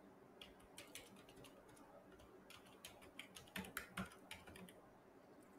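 Faint computer keyboard typing: a string of quick key clicks, with a few louder ones a little past halfway.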